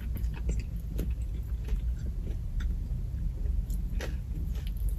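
Low steady vehicle rumble, with a few faint scattered clicks.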